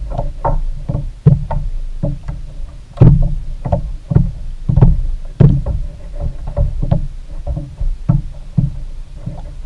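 Small waves slapping and knocking against a kayak's hull in irregular thumps and splashes, loudest about three seconds in.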